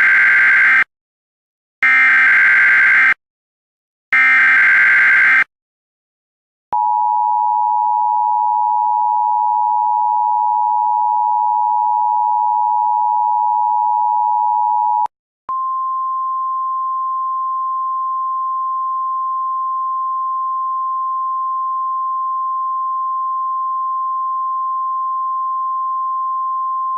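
Emergency Alert System alert tones. First come three short screeching bursts of SAME header data, then the two-tone EAS attention signal held steady for about eight seconds. After a brief gap comes a single, somewhat quieter steady tone, the weather-radio alert tone, held for about twelve seconds.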